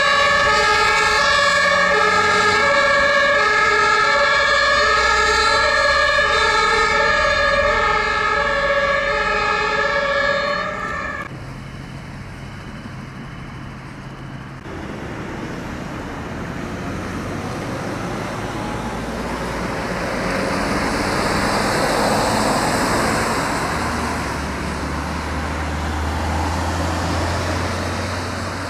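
German two-tone emergency-vehicle siren (Martinshorn) on fire brigade vehicles, alternating between two pitches, then cutting off abruptly about eleven seconds in. After that come the engines and tyres of passing emergency vehicles, swelling as they pass, with a deep engine rumble near the end.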